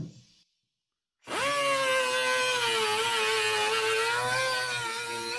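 Small pneumatic cut-off tool spinning up about a second in and cutting through the sheet-steel door bottom of a 1947-1951 Chevy truck: a steady high whine that wavers slightly as the wheel bites into the metal.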